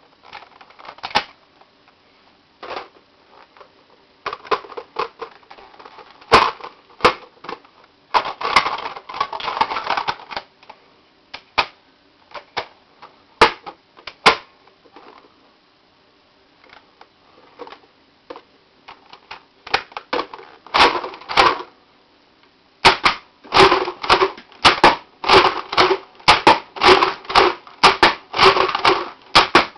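Modified Nerf Vulcan blaster's plastic action being worked: loose clicks at first, then a fast run of sharp clacks about twice a second near the end.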